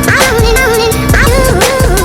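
Background music with a steady beat and a gliding lead melody.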